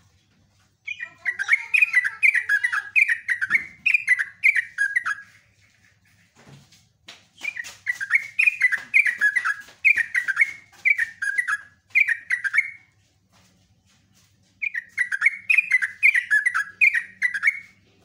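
Yellow-vented bulbul singing in three long bouts of quickly repeated, falling notes, about three a second, with short pauses between the bouts.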